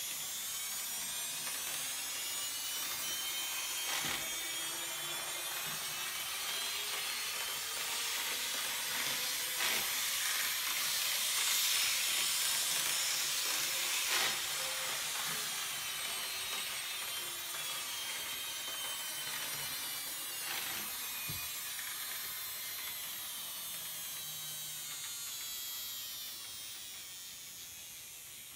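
An N scale SW9 model diesel switcher locomotive running around the track: a high, wavering motor whine with the hiss of wheels on rail, and a few sharp clicks. The sound swells toward the middle and eases near the end.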